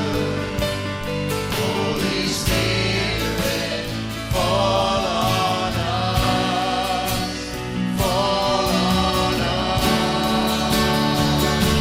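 Choir singing a gospel-style worship song, with instrumental band accompaniment and a steady beat.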